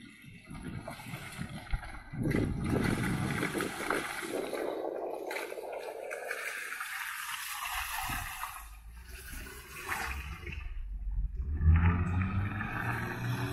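Land Rover Defender 110 on all-terrain tyres churning and splashing through a wet, muddy rut, with the engine's low note getting louder near the end as it passes.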